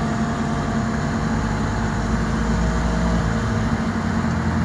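Heavy truck engine running steadily with a low hum, the truck under way.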